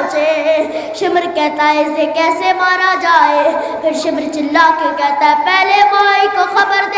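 A boy's solo voice singing a Shia mourning lament into a microphone, holding long wavering notes that glide between pitches, with short breaks for breath.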